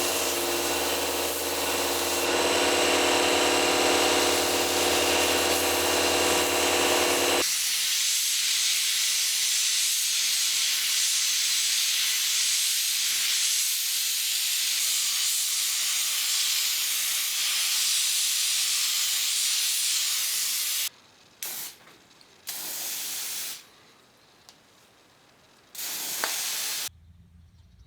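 A motor runs with a steady hum under a loud hiss. About seven seconds in the motor stops suddenly while the hiss carries on steadily, and near the end the hiss comes in several short bursts that start and stop abruptly.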